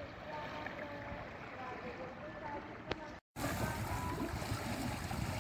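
Background song with a wavering melody over the steady noise of a boat at sea. The sound drops out briefly a little over three seconds in at a cut, then returns with a heavier rumble of boat and water noise.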